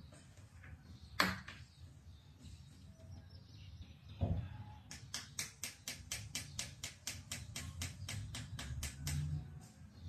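African grey parrot knocking its beak against the bottom of a glass door: one sharp tap about a second in, a duller knock a few seconds later, then a fast, even run of taps, about four or five a second, for around four seconds.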